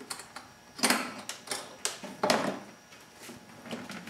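A hard motorcycle saddlebag being unlatched and lifted off: a series of sharp knocks and clicks as the bag and its lid bump against the bike and mounts, about half a dozen over a few seconds.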